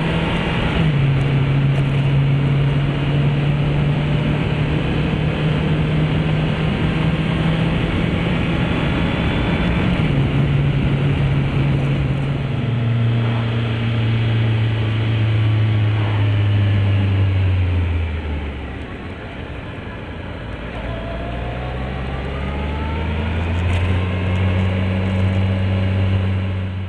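Motorcycle engine running on the move over a steady rushing noise, dropping in pitch a couple of times as it shifts gear. About 18 seconds in it slows to a low, quieter note, then rises again as it picks up speed near the end.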